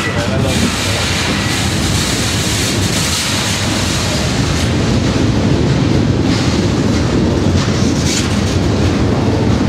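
Slow, heavy freight train rolling past close by inside a railway tunnel while working upgrade toward a summit: a loud, steady rumble with some clickety-clack from the wheels.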